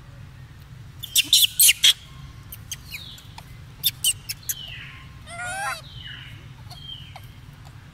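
Baby macaque squeaking: a quick run of five or so sharp, high-pitched squeaks about a second in, a few more around four seconds, and a short wavering cry just after five seconds, over a steady low hum.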